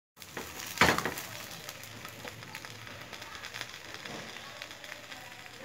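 Banana-leaf parcel of paturi sizzling and crackling on a hot tawa over a low gas flame, with many small crackles and one louder crackle about a second in.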